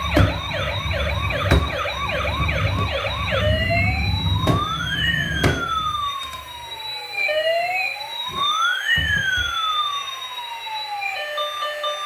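Electronic siren of a battery-powered toy police car. It plays a fast yelp of about eight quick sweeps, then two slow wails in which a rising tone crosses a falling one. A few sharp clicks sound along with it.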